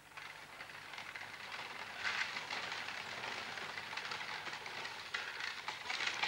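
Horse-drawn carriage approaching on a gravel drive: a dense crunching and crackling of wheels and hooves that grows louder, stepping up about two seconds in and again near the end.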